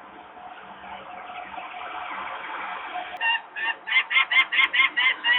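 Adult peregrine falcon giving a rapid, repeated harsh alarm call, about four calls a second, starting about three seconds in; the parent is agitated near its chicks. Underneath runs a steady mechanical background noise.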